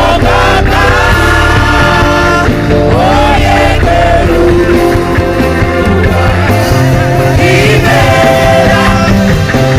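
Live gospel worship band playing loudly, full and steady with a strong bass, with a sung or lead melody line gliding over sustained chords.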